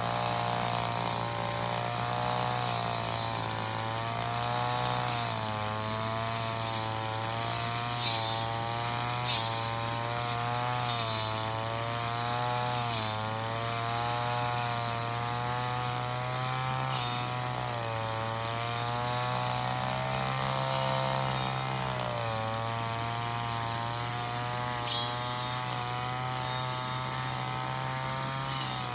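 Two-stroke brush cutter engine running under load, its pitch repeatedly dipping and rising as the cutting head bites into grass. Sharp ticks and swishes of cut vegetation and debris are scattered through it.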